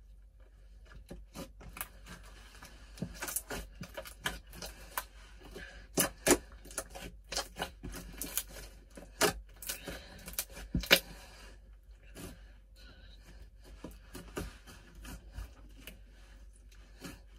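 Hands kneading and stretching glue-and-borax slime with red clay being worked into it, giving irregular sticky clicks and pops. The clicks come thickest and loudest from about three to eleven seconds in, then thin out.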